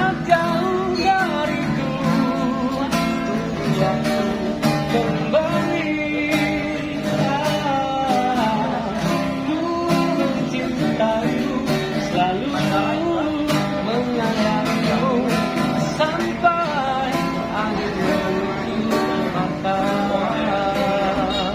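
Acoustic guitar strummed steadily as a man sings a melody over it: a busker's live song.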